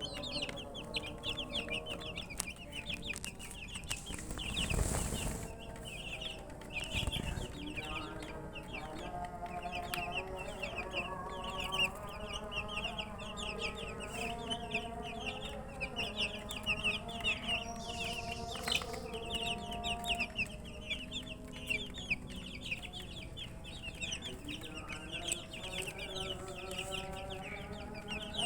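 A flock of baby chicks peeping continuously: many short, high chirps overlapping without a break, which the owner puts down to thirst for water. There is a brief rustling noise about four to five seconds in.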